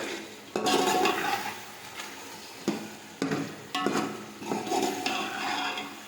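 A metal spoon stirring and scraping meat in masala in a cooking pot, knocking against the pot with a short ringing clank about five times, over the frying of the masala.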